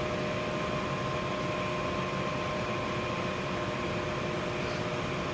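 Daikin gas furnace running: steady fan air noise with a constant hum and a faint steady whine.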